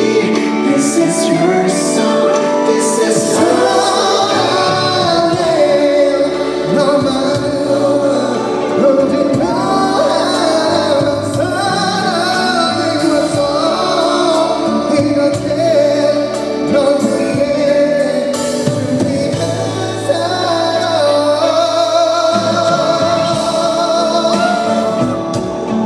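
Live concert music: a male singer performing a love song over band accompaniment, sustained sung lines.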